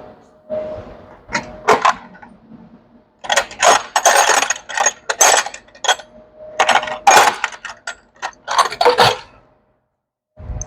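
Metal hand tools clinking and jangling together in several short bursts of sharp clatter.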